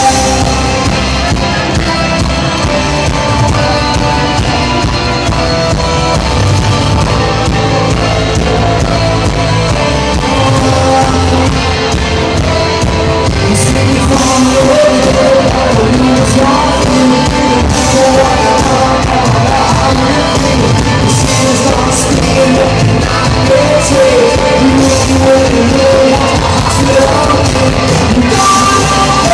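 Loud rock band playing live, with a lead singer over amplified instruments.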